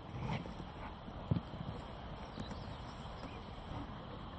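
Footsteps and rustling movement on a woodland path, with one dull thump about a second in.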